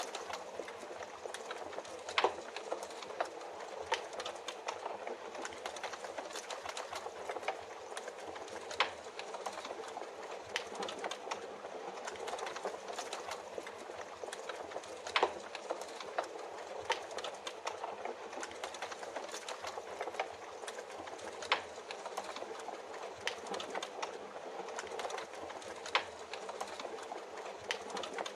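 Wood fire crackling, with sharp irregular pops every second or two, over a steady hiss of rain.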